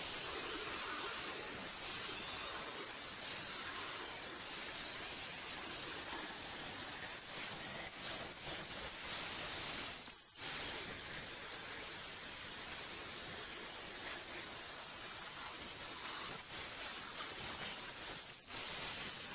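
Large angle grinder with a cut-off wheel cutting through metal frame pieces: a steady, harsh hissing grind with sparks flying, broken off briefly about ten seconds in.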